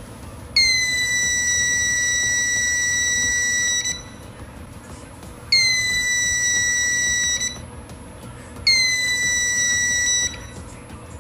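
Piezo buzzer of a homemade BC547 transistor metal detector sounding a steady high-pitched tone three times, each lasting about two to three seconds, as metal tools come near its search coil: the detector sensing metal. Each tone starts with a slight drop in pitch before it settles.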